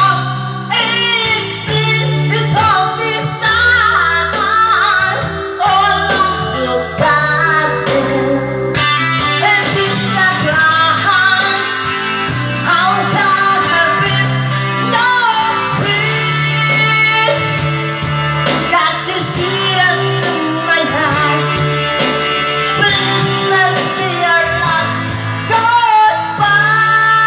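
A man singing karaoke-style into a microphone over recorded backing music with a steady bass line.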